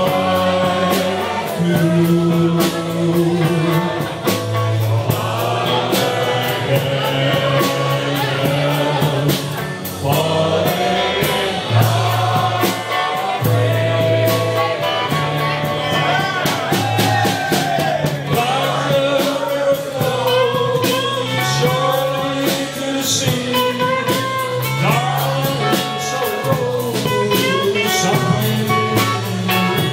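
Live band: a man singing over electric guitar, a walking bass line and drums keeping a steady beat, picked up in a small room.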